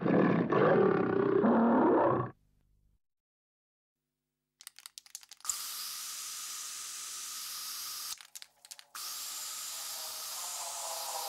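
A gorilla roar lasting about two seconds and cutting off, then a short silence. A few sharp clicks follow, then the long hiss of an aerosol spray can, broken once for about a second.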